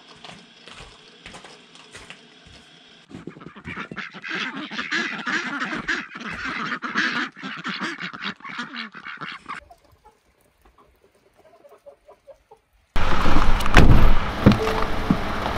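A flock of domestic ducks quacking and chattering, after a few seconds of faint crunching and ticking from a cat eating dry kibble. A short near-silence follows, then loud music starts suddenly near the end.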